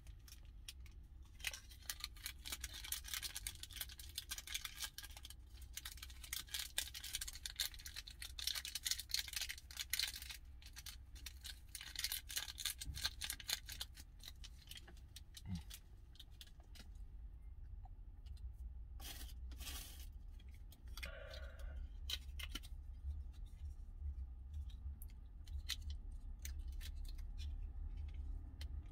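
Small plastic sachets of seasoning and sesame oil being torn open and squeezed into a paper cup of instant beef porridge: quiet crinkling and dense small clicks for the first half, fewer and sparser later. A low steady hum runs underneath.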